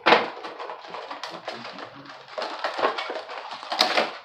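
Cardboard box and plastic packaging rustling and crinkling as a figure is pulled out of its box, with sharp crackles at the start and near the end.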